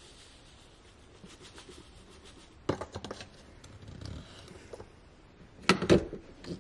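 Ground coffee pouring from a bag into an espresso portafilter with faint rustling and scraping, then sharp metal knocks as the portafilter is handled about three seconds in. Near the end come the loudest clanks, as the portafilter is locked into the Breville espresso machine's group head.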